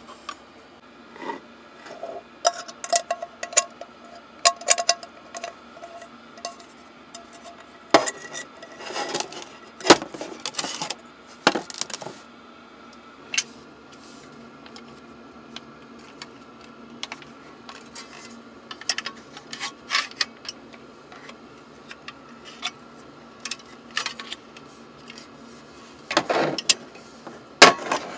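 Metal camp dishes and utensils clinking and knocking as they are handled and set down: a run of sharp clinks and taps, busiest in the first half and again near the end, over a faint steady hum.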